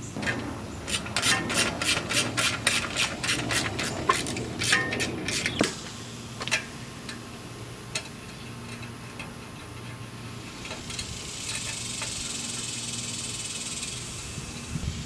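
A quick run of sharp clicks, about five a second for four to five seconds, from work on the trike's rear wheel hub, followed by two single clicks. Later a steady high hiss sets in for a few seconds.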